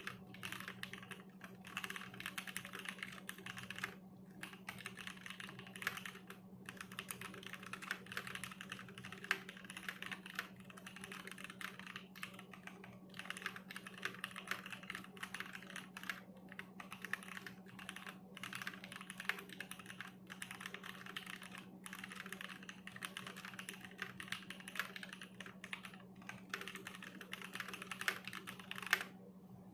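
Custom Matrix Abel R1 mechanical keyboard with lubed Gateron Ink Black linear switches, an aluminium plate and PBT keycaps, typed on fast and continuously, with short pauses now and then. The typing stops just before the end.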